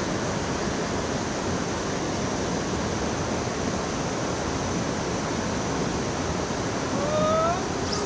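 Steady rush of a fast mountain headwater stream: an even, unbroken hiss of tumbling water.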